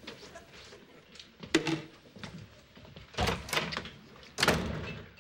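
Refrigerator door and its contents being handled: a few sharp knocks and thuds, the loudest about three seconds in and near the end.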